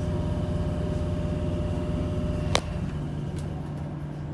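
Steady electrical hum inside a Tyne and Wear Metrocar, with several held tones. A sharp click comes about two and a half seconds in, a higher tone cuts off with it, and a fainter click follows a moment later.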